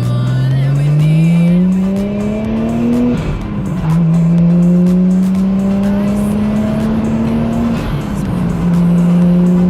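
Nissan Skyline R33's engine accelerating hard, with the air filter's intake blowing loudly. The revs climb for about three seconds and drop at an upshift, climb again more slowly, and drop at a second upshift near the end.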